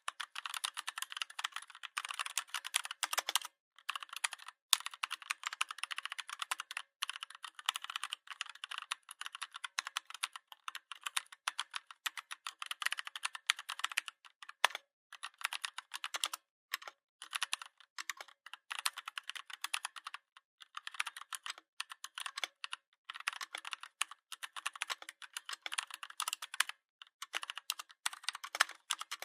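Fast typing on a Redragon 61-key mechanical keyboard: a dense run of key clicks, broken by a few brief pauses.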